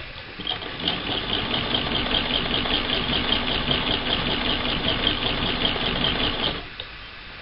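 1937 Frister and Rossmann transverse shuttle sewing machine running and stitching a seam through two strips of cotton fabric, with a steady rhythmic clatter. It starts about half a second in and stops abruptly near the end.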